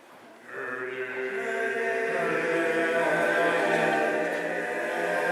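Male a cappella group singing a held chord in close harmony, coming in about half a second in and swelling louder, with the bass note moving up about two seconds in.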